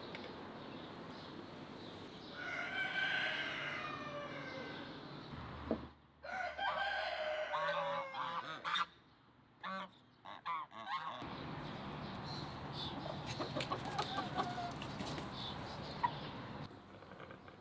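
Farmyard poultry calling: geese honking and hens clucking in short bursts. The background changes suddenly about six and eleven seconds in.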